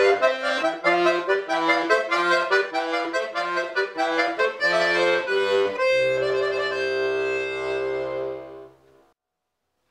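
Bayan (Russian chromatic button accordion) playing a quick passage of short notes and chords, then holding one long final chord that fades and stops about nine seconds in, ending the piece.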